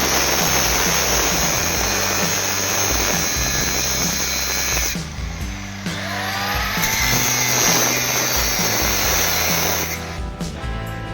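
A power tool running steadily, cutting out about five seconds in and starting again, then stopping about ten seconds in. Background music plays throughout and carries on alone at the end.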